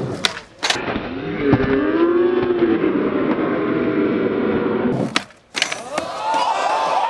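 Skateboards clacking hard against concrete: two sharp hits near the start and another about five seconds in, over a rolling rumble. A crowd yells and whoops throughout.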